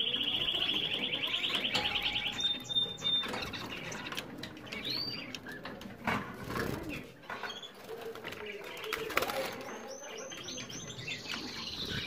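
Canaries singing: a fast, even rolling trill for the first two seconds, a short whistle, then scattered chirps and a few clicks, with rising trilled phrases returning near the end.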